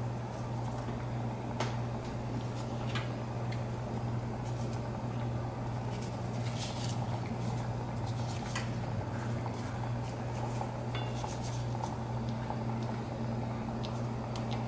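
Steady low hum with scattered light clicks and taps as sliced onion is laid into a stainless steel pan of fish and broth.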